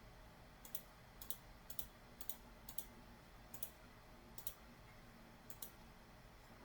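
Computer mouse clicking: about eight faint, sharp clicks at irregular intervals, several of them quick double clicks.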